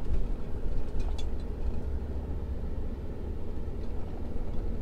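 Engine and road rumble heard inside the cabin of a slowly moving vehicle, a steady low drone, with a few faint clicks about a second in.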